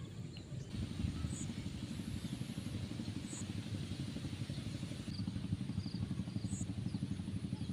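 A small engine running steadily, a low, rapid chugging that comes in about a second in.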